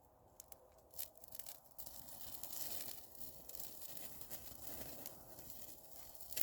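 Rustling and crinkling of something being handled: a few sharp clicks, then steady crackly rustling from about two seconds in.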